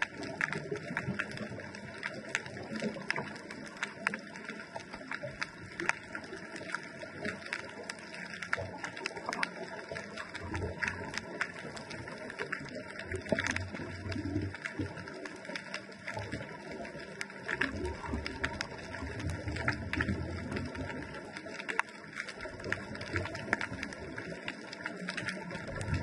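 Underwater ambience picked up by a GoPro in its housing on a scuba dive: a steady crackle of countless small clicks, with low bubbling rushes every few seconds from the diver's exhaled breath.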